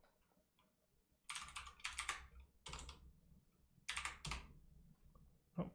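Computer keyboard keys being typed: short groups of quick key taps from about a second in, typing a short command, with a duller tap near the end.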